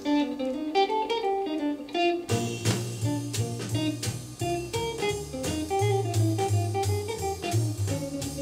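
Background music: a plucked guitar melody, joined by a bass line and drums about two seconds in.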